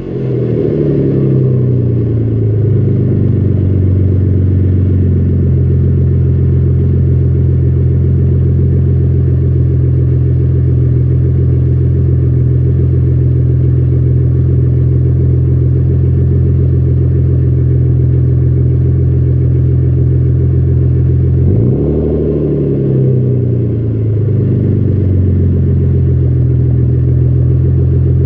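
2010 Ford Taurus SHO's 3.5-litre EcoBoost V6 running through a cat- and resonator-delete exhaust with FloPro 4512RS mufflers and no X-pipe. The revs fall from a rev to a steady idle over the first few seconds. About 21 seconds in, a quick throttle blip rises sharply and drops back to idle over a couple of seconds.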